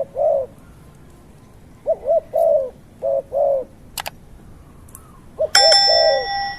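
Pigeon-family bird cooing in short phrases of two or three arched notes, repeated four times. A sharp click comes about four seconds in, and a bright ringing tone with many overtones sounds for about a second near the end.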